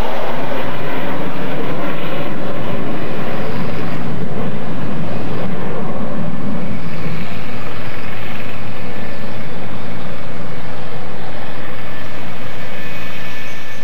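Loud, steady jet roar from the twin General Electric J79 turbojets of an F-4E Phantom II climbing away at go-around power, with a thin high whine in it from about halfway. The sound starts to fade right at the end.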